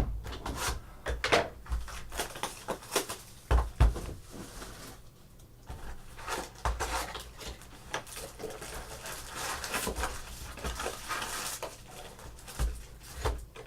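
Trading cards and their packaging being handled: irregular light clicks, taps and rustling, with a quieter stretch about five seconds in.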